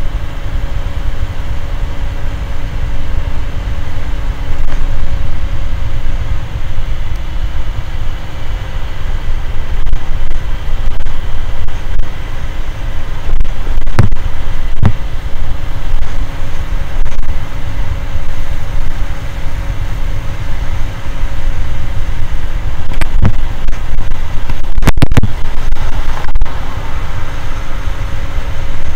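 Motor scooter riding at steady speed: its small engine running under heavy wind rumble on the microphone, with a faint steady whine and a few brief knocks about halfway and again near the end.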